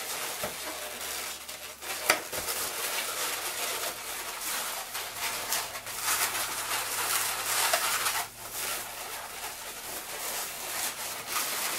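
Latex modelling balloons (260s) rubbing and squeaking against each other and against the hands as the finished balloon chicken is squeezed and shaped, with a sharp click about two seconds in.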